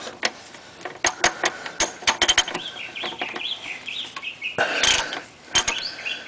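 Sharp, irregular metal clicks and taps of a ratchet with a 15 mm socket being fitted onto a car's oil drain plug, with a quick run of clicks about two seconds in. Bird-like calls, tagged as chicken clucking, sound in the background around the middle.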